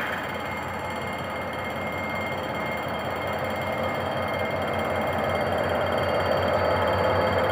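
Level-crossing warning bell ringing continuously as a GM GT22CW-2 diesel-electric locomotive hauls a passenger train over the crossing, its engine rumble growing louder as it draws near.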